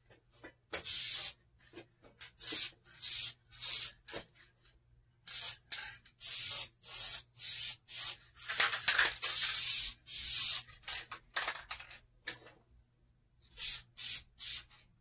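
Aerosol can of Dupli-Color vinyl and fabric paint spraying in many short hissing bursts, with one longer spray of about two seconds just past the middle.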